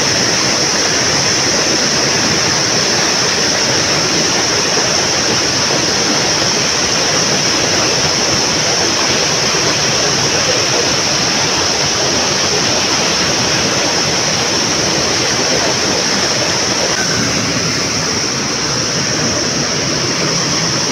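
Stream water rushing steadily, a constant loud wash, with a steady high-pitched hiss over it.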